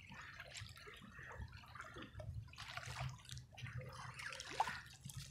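Faint, irregular splashing and lapping of shallow water from a hooked Pacific angel shark thrashing at the shoreline as it is reeled in.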